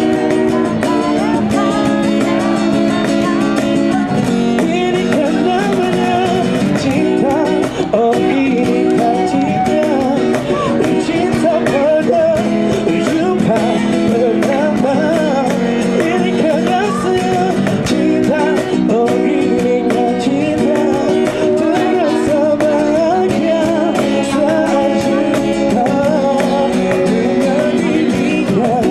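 A busker's song: guitar chords played steadily under a wavering melody line, with no break.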